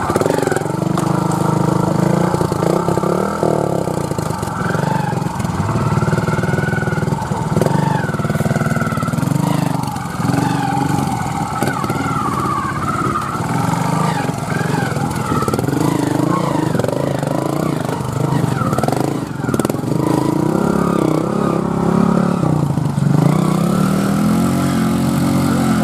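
Trials motorcycle engine running at low speed and revving up and down in short throttle blips as the bike climbs over rocks.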